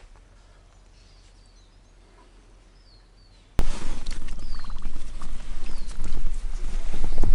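Quiet forest with a few short bird chirps. Then, about three and a half seconds in, a sudden sharp crack, followed by loud, close rustling and irregular thumps, like movement and footfalls on the forest floor near the microphone.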